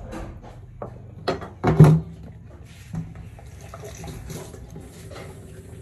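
A few knocks on a stainless-steel sink counter, the loudest about two seconds in, then tap water running into the steel sink.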